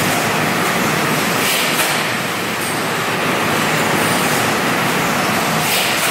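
Automatic high-pressure bottle washing machine running: a loud, steady mechanical din from its pump and conveyor, with brief hisses about a second and a half in and again near the end.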